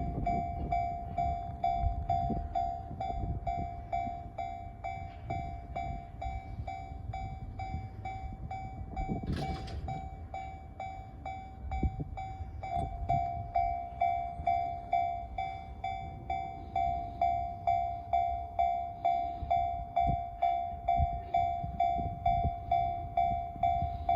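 Japanese railway level crossing alarm ringing, a single bell-like tone repeating about twice a second, louder in the second half. A low rumble runs underneath.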